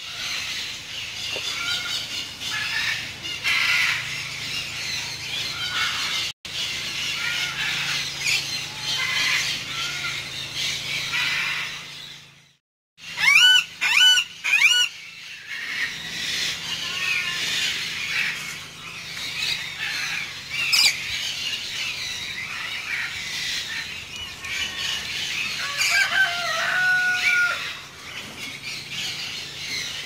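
Parrots and other aviary birds calling: a steady chatter of chirps and squawks, with a run of loud, looping calls about halfway through and a drawn-out call near the end.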